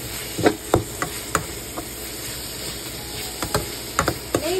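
Ground pork stir-fry sizzling in a frying pan while a spatula stirs it, with a series of sharp scrapes and knocks of the spatula against the pan, several in the first two seconds and more near the end.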